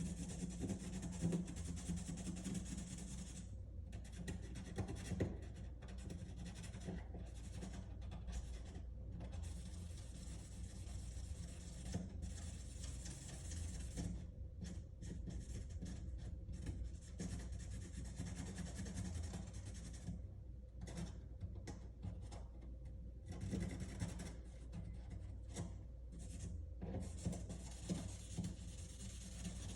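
Black pen rubbed along the cut edge of a wooden cabinet stile: faint, irregular scratching strokes with short pauses between them.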